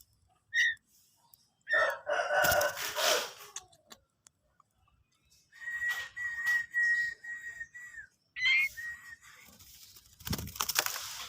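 A rooster crowing about two seconds in, followed by bird calls: a long high whistled note broken into short pulses, a rising chirp, and another loud call near the end.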